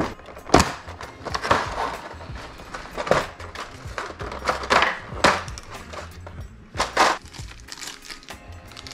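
Moulded plastic blister trays of a boxed action figure being handled: irregular knocks, scrapes and crinkling of plastic as the figure and its bagged parts are lifted out, over background music.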